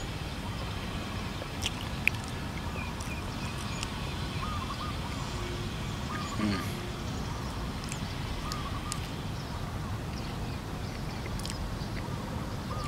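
A steady low rumble of wind on the microphone, with a bird giving a short wavy call four or five times and a few soft mouth clicks from chewing banana, the sharpest about two seconds in.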